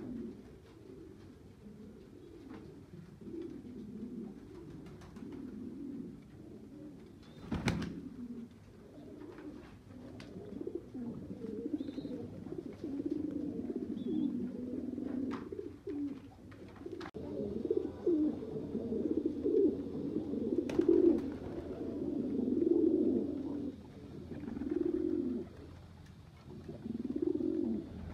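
Domestic fancy pigeons cooing: low, repeated coos that come thicker and louder in the second half. A few sharp clicks or knocks sound among them, the clearest about a third of the way in.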